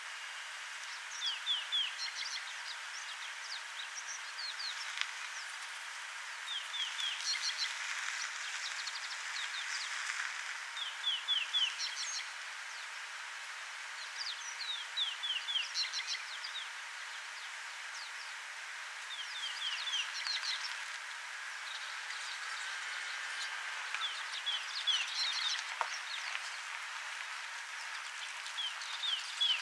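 Wild birds calling in the bush, repeating short runs of quick high notes that drop in pitch, every few seconds, over a steady outdoor hiss.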